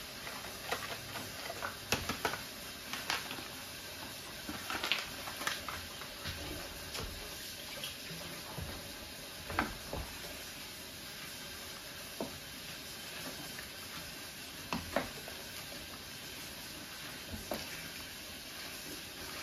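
A pot of soup boiling on the stove: a steady bubbling hiss, with a few scattered knocks and clinks against the pot.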